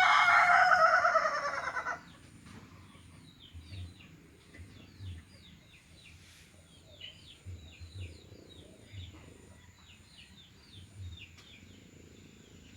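A rooster crowing: one long, loud call that falls away and ends about two seconds in. After it, a small bird chirps over and over in short, high notes.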